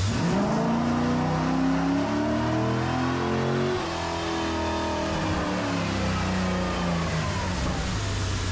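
Car engine running hard under acceleration, its note climbing steeply at the start and then slowly falling through the second half.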